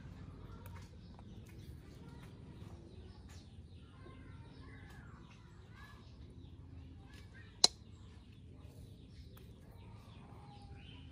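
Faint bird chirps over a steady low rumble of outdoor ambience, with scattered small ticks. One sharp, short click about seven and a half seconds in is the loudest sound.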